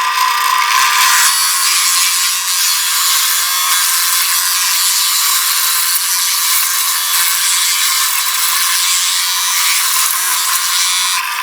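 Power drill running steadily and loudly as a Forstner bit bores through a block of wood.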